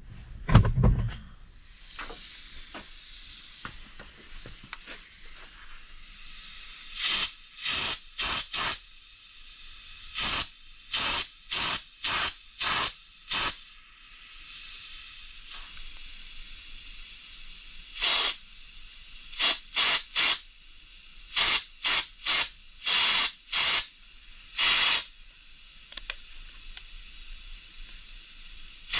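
Compressed-air blow gun giving quick runs of short, sharp blasts of hiss, with a fainter steady hiss between them. Air is being blown through the injection sealant channel of a BMW N55 engine's bedplate to check that it comes out through the end seals. A few low knocks come right at the start.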